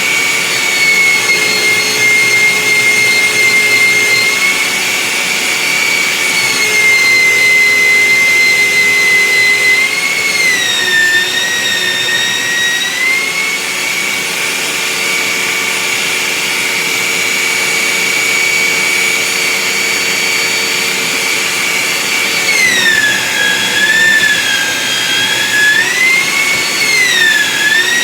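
Belt sander running with a steady high whine, its pitch sagging as a wooden chair leg is pressed onto the belt: briefly about ten seconds in, and again for longer, wavering, near the end.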